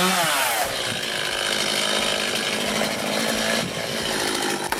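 Two-stroke chainsaw running steadily as it cuts into a tree.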